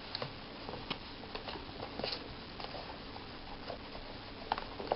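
Faint handling sounds of a handmade paper book: light scattered taps and soft rustles of pages and cover being moved about, with a slightly sharper tap about four and a half seconds in.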